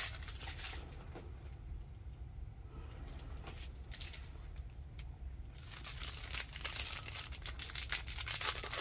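Plastic packaging crinkling as a bag of diamond-painting drill packets is picked up and handled. A few light rustles and taps at first, then continuous crinkling from a little past halfway, getting louder near the end.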